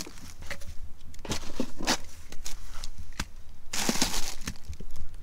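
Hands rummaging through a hard-sided cooler: aluminium drink cans knock and clink against each other, and a plastic produce bag crinkles loudly for about half a second nearly four seconds in.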